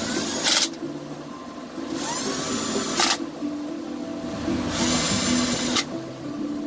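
Milwaukee cordless drill-driver with a long bit, run in three short bursts against a fastener on the chainsaw. Each burst rises in pitch as the motor spins up and ends in a sharp click. Music plays underneath.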